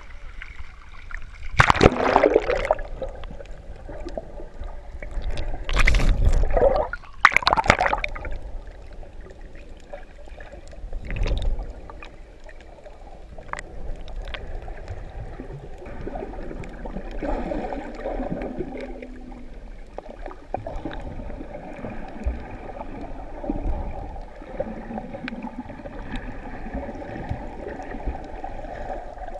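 Water splashing around an action camera as it breaks the surface, with several loud splashes in the first twelve seconds, then the muffled gurgling and rushing of water heard through the submerged camera.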